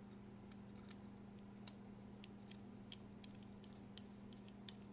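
Faint, scattered small clicks and ticks of a driver bit and knife parts being handled as a screw on one side of the folding knife is snugged down, over a steady low hum.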